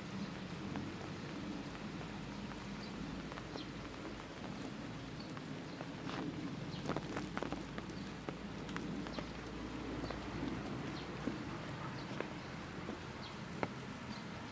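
Outdoor ambience: a steady background hiss with scattered light ticks and a few short, faint high chirps.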